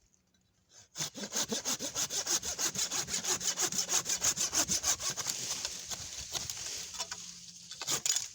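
Hand saw cutting through a tree branch in fast back-and-forth strokes, about five a second. The sawing starts about a second in, turns to a steadier, fading rasp after about five seconds, and there is one sharp knock near the end.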